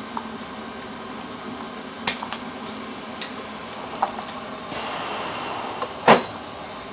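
A folded bellows way cover being cut and handled on a steel milling-machine table: a few light clicks and knocks, a rustle of the folds about five seconds in, and one sharp metallic clank with a short ring just after six seconds, the loudest sound. A steady workshop hum underneath.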